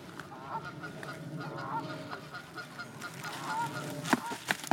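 Waterfowl calling with repeated short honks, and two sharp knocks a little after four seconds in.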